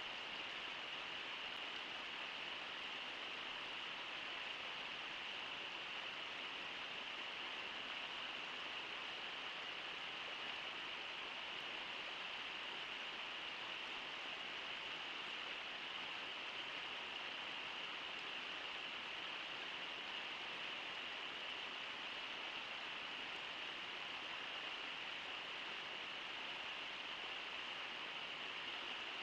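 Steady rush of flowing river water, an even hiss with no separate splashes or other events.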